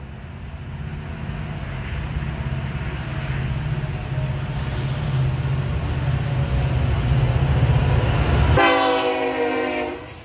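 Norfolk Southern freight train's diesel locomotives approaching, their rumble growing steadily louder. Near the end the locomotive horn sounds loudly for about a second and a half as the lead units pass.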